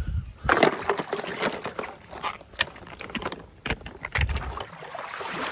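Shallow rainwater sloshing and splashing as it is stirred, with sharp clicks of hard plastic toys knocking together.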